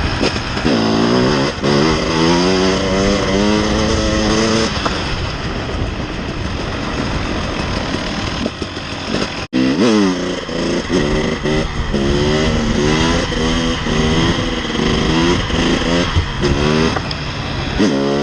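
KTM 300 EXC TPI fuel-injected two-stroke enduro engine under way, revving up and dropping back again and again as the throttle opens and gears change, with a brief break just after the middle. The engine is warmed up.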